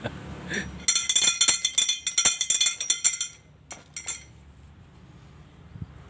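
Metal clappers on the hand-turned shaft of a homemade noisemaker windmill strike a stainless-steel pipe in a rapid, ringing metallic clatter for about two and a half seconds. A couple of last clinks follow as the shaft stops.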